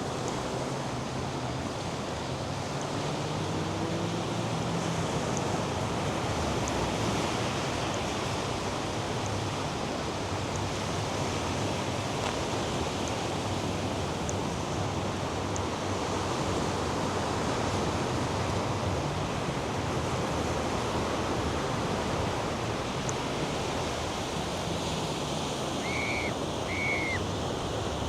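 North Sea surf washing onto a sandy beach, a steady rush of waves, with two short high chirps near the end.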